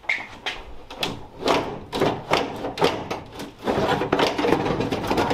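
Irregular knocks and clunks, then steady scraping from about three and a half seconds in, as the window glass and regulator are worked loose inside the steel door of a 1976 Chevy K10 pickup.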